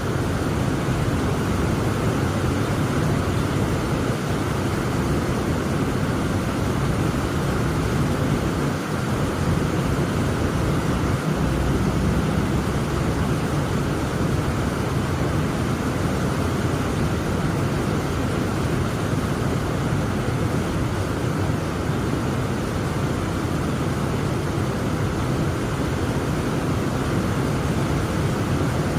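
Steady heavy rain falling: a dense, even hiss with a strong low rumble beneath it.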